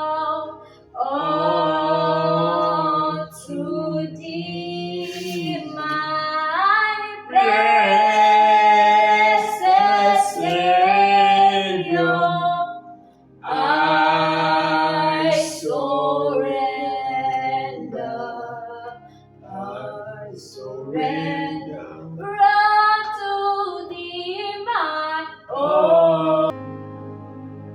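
A woman singing a slow worship song in long, drawn-out phrases with wavering held notes, over soft sustained backing music.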